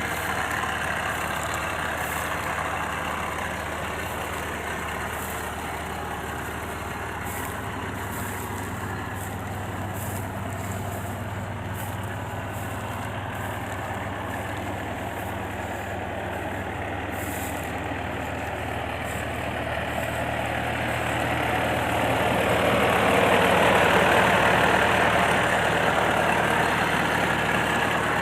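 Yanmar YH850 combine harvester's diesel engine running steadily at standby, with a low, even hum. About three-quarters of the way through, the sound swells louder for several seconds and then eases back.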